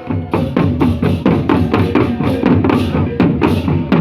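Drum-led percussion music: a fast, steady run of drum strikes with short, bright cymbal-like hits laid over them.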